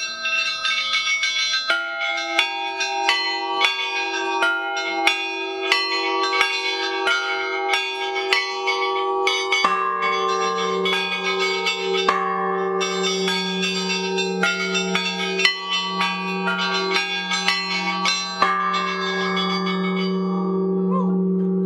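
Russian Orthodox church bells being rung: small treble bells struck in a quick, uneven patter, over a humming mid-sized bell. A large bass bell is struck about ten seconds in and keeps ringing.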